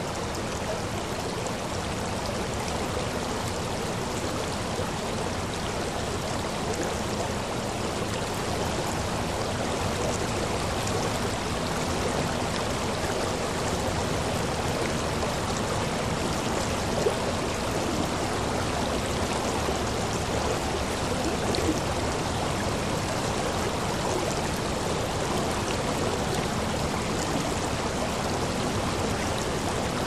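Small river flowing, water trickling over rocks in a steady, even rush. Two brief slightly louder moments stand out past the middle.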